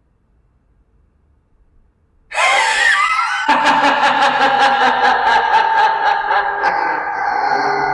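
Near silence, then about two seconds in a sudden loud maniacal laugh: a wavering cry that breaks into a rapid, pulsing cackle of about five beats a second, fading toward the end.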